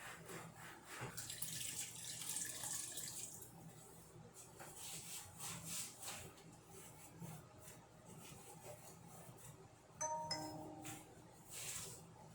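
Cloth wiping and rubbing inside a refrigerator in short repeated strokes, with a hissing stretch near the start. A brief electronic chime sounds about ten seconds in.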